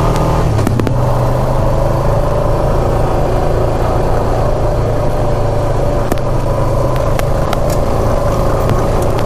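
ATV engine running steadily under way, with a few sharp clicks and knocks over it.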